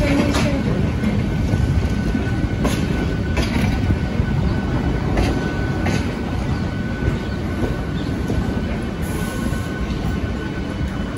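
EMU local train running slowly, heard from its open doorway: a steady rumble of wheels on rail, a few sharp clicks as the wheels cross rail joints, and a faint thin steady whine.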